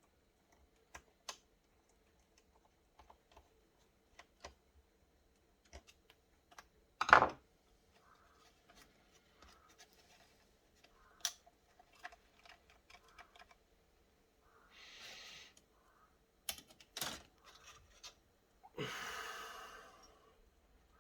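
Scattered small plastic clicks and taps from handling a laptop's screen assembly and parts, with one louder knock about seven seconds in. Two short hissing noises come later, the second longer and near the end.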